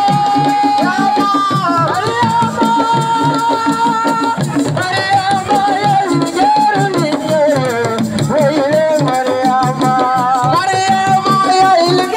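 Assiko band music: a voice singing long, held, wavering lines over a steady hand-drum and percussion rhythm.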